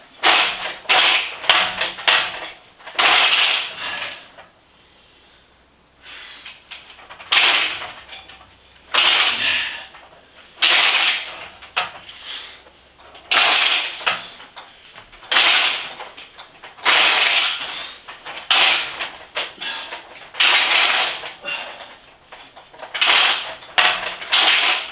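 Giant homemade ball bearing in a robot's swivelling top grinding and scraping as the top is pushed round by hand, in short bursts about every one to two seconds. The bearing is stiff and under-greased, and it sounds like something is grinding or rubbing inside.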